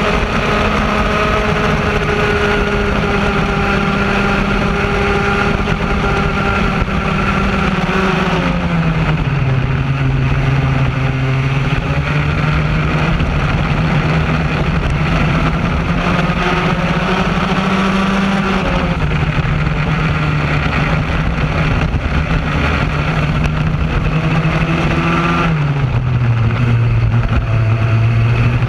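Raket-class kart's two-stroke engine running hard, heard close up from the kart itself. The revs fall as the driver comes off the throttle for a corner about a third of the way in, climb back and hold, then fall and pick up again near the end.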